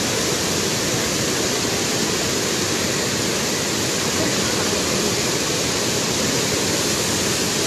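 Flood-swollen river of muddy water rushing past in a steady, loud, unbroken rush of churning water.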